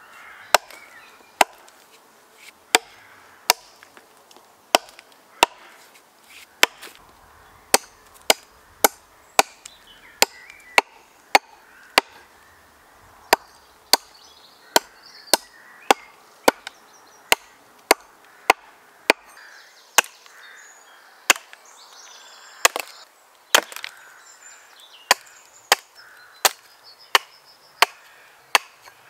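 Hand axe chopping and hewing a split wooden plank, sharp blows landing in a steady rhythm of about three every two seconds.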